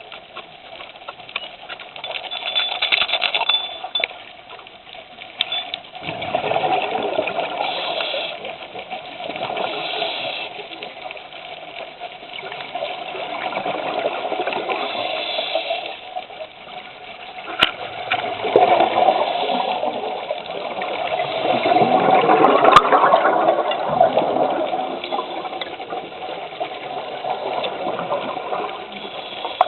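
Scuba diver's regulator breathing underwater: hissing inhales and rushing bursts of exhaled bubbles that come and go every few seconds, with a couple of sharp clicks.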